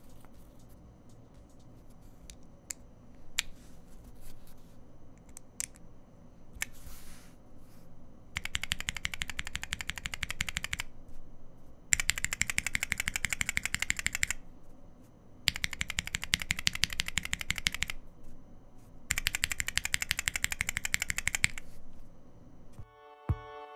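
Tactile mechanical keyboard switches, a c3 Kiwi and a Durock T1, mounted in a small macropad with keycaps and tapped rapidly in four bursts of about two and a half seconds each. Each burst is a fast train of clacks. A few scattered single clicks come before the first burst.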